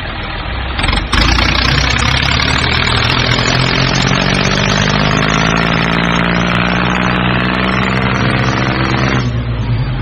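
A vehicle engine running steadily with a clear pitch. It gets louder about a second in, and its higher part drops away shortly before the end.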